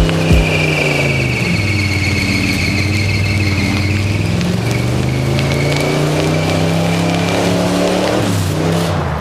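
A car engine whose note drops and then climbs again, with a high-pitched squeal over it.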